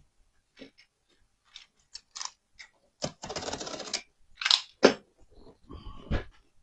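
Cardboard laptop box being handled: scattered taps and clicks, with a noisy scraping stretch of about a second about three seconds in and two sharp clicks shortly after.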